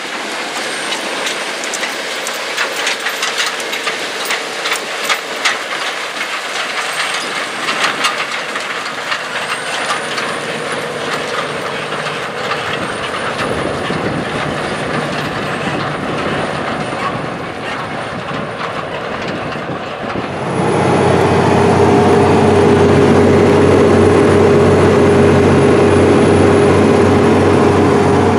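John Deere 9620R tractor's Cummins QSX15 six-cylinder diesel working in the field, pulling a 60-foot anhydrous ammonia toolbar and tank wagon, with frequent rattles and clatter. About two-thirds of the way through it becomes suddenly louder, heard close to the engine: a steady diesel drone with a steady hum over it.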